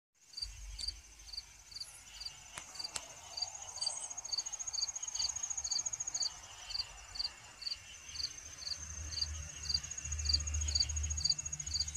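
Night insect chorus: a cricket chirping steadily, a little over two chirps a second, over a continuous high-pitched insect trill, with a low rumble underneath that grows in the second half.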